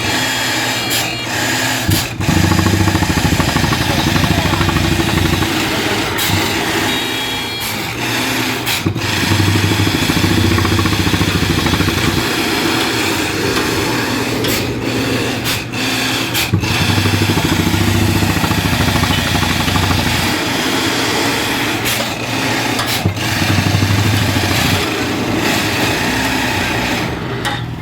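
Borewell drilling rig's engine running hard and steadily, its level swelling and easing every few seconds as the load changes, with a few short knocks.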